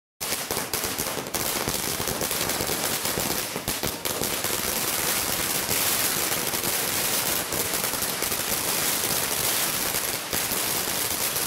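A long string of firecrackers bursting in rapid succession, a dense, unbroken crackle of bangs that starts abruptly.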